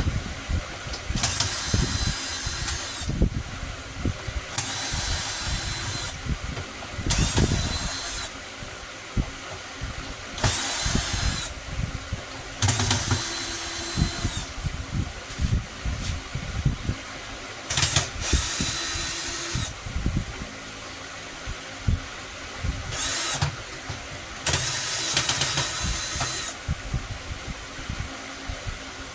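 A small handheld power tool running in short bursts of one to two seconds, about eight times, each with a steady high whine. Short knocks and clatter come between the bursts.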